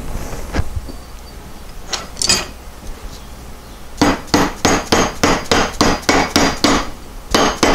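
Hammer striking metal on a VW 020 transmission during seal work: a few scattered taps, then about four seconds in, a quick, even run of about a dozen blows, roughly four a second, each with a short metallic ring.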